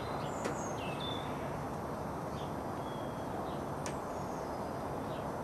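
Faint bird chirps, a few short gliding calls, over a steady background hiss, with a couple of light clicks.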